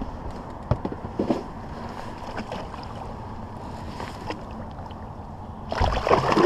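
Water lapping against a boat's side with a few light knocks, then near the end a loud splash as a released musky kicks off and swims away.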